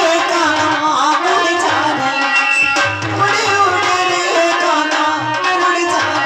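Live devotional folk song (bhajan): a woman-voiced singer through a PA microphone, accompanied by harmonium and a hand drum beating a steady rhythm.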